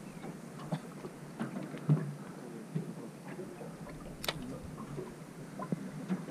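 Scattered light clicks and knocks at irregular times, with one sharp click about four seconds in.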